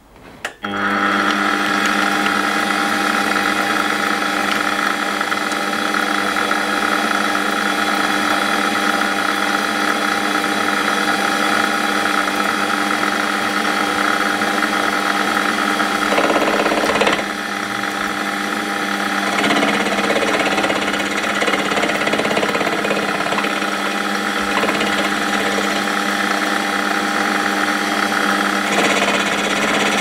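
Metal lathe starting up about a second in and running steadily, its motor and gearing giving several steady whining tones, while taking a skim cut along the outside of a home-cast aluminium bar. The sound shifts briefly about halfway through.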